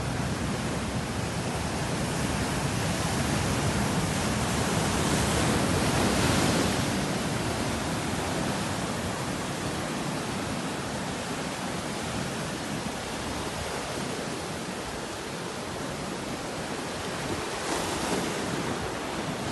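Surf breaking and washing over shoreline rocks: a steady rush of churning water that swells about five seconds in and again near the end.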